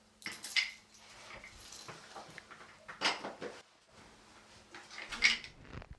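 Crockery and cutlery clinking and knocking as dishes are cleared from a table: scattered small clinks, with a few louder ones spread through.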